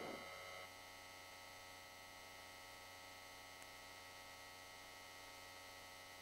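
Near silence, with only a faint steady electrical hum.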